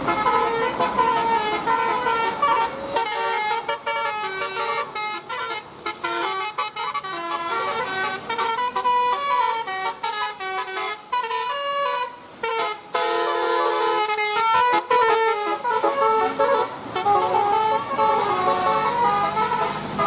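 Telolet basuri bus horn, a multi-tone electric horn, playing a melody in quick stepping notes, with a few short breaks between phrases.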